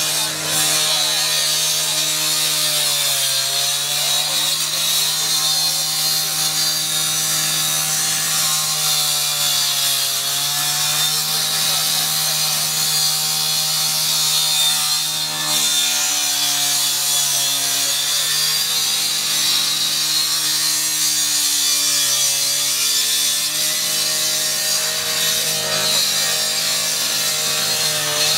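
Rotary cut-off saw running at full speed and cutting through a steel door, with a constant high grinding hiss. The motor's pitch sags about four times as the blade is pressed into the cut, then recovers.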